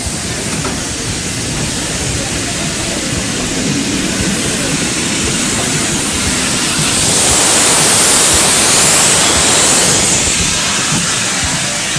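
GWR Manor-class steam locomotive 7822 moving slowly, its open cylinder drain cocks letting out a steady rush of steam hiss. The hiss grows louder about seven seconds in and eases near the end.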